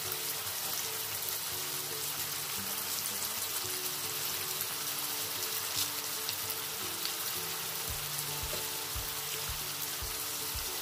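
Spring onion leaves, tomato sauce and spices sizzling steadily in a frying pan. Background music with sustained notes plays under it, and a low regular beat comes in about eight seconds in.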